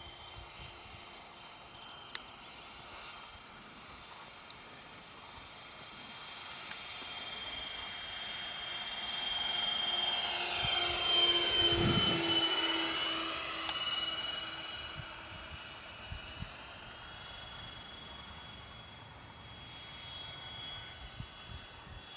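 Freewing A-10 radio-control jet's twin 80mm electric ducted fans whining on a flyby: the whine grows louder as the model approaches, is loudest about halfway through with its pitch dropping as it passes, then fades away.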